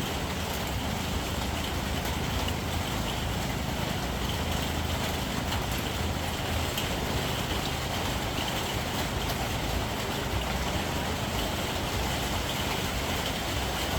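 Steady rain hissing over the constant low rumble of a vehicle running, with no change or single event throughout.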